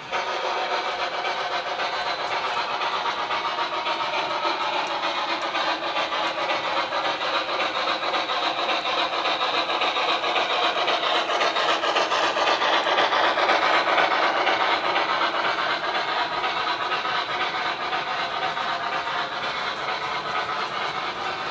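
O scale model steam locomotive and freight cars running past on the track: a steady whir and clatter of the motor and wheels with fine rapid clicking. The sound starts suddenly and is loudest a little past halfway, as the train passes closest.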